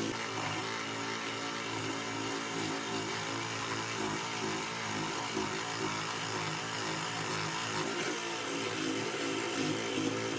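A small electric power tool's motor running steadily, its pitch wavering slightly.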